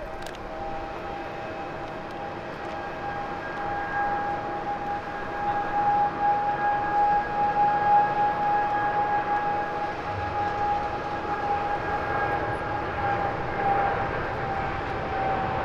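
Boeing 777-200ER's twin jet engines at takeoff power on the takeoff roll: a steady high whine over a rumble, growing louder a few seconds in.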